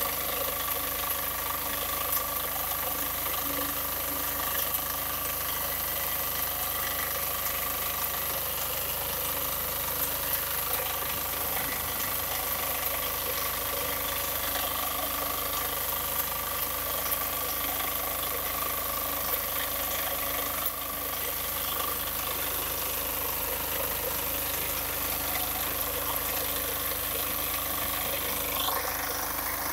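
Small engine of a walk-behind crop reaper running steadily while its cutter bar cuts through standing grain stalks.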